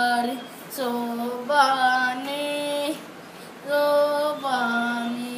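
A boy singing a Telugu devotional song to the goddess Lakshmi without accompaniment, holding long drawn-out notes in three phrases.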